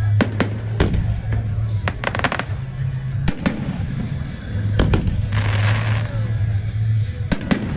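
Fireworks shells bursting, sharp bangs every second or so, some in quick pairs, with a crackling hiss about five seconds in. Music plays underneath.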